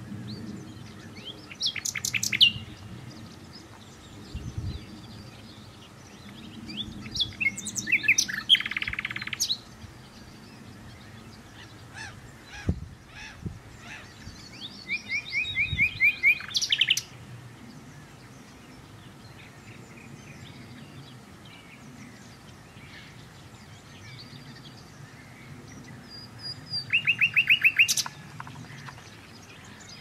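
Nightingale singing in separate phrases with pauses of several seconds between them. Each phrase mixes whistled notes with fast runs of repeated notes, and near the end comes a rapid trill.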